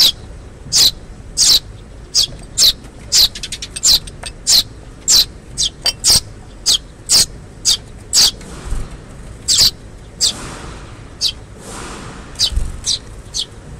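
Eurasian tree sparrow fledglings begging: a steady series of short, high-pitched chirps, about two a second, some in quick runs.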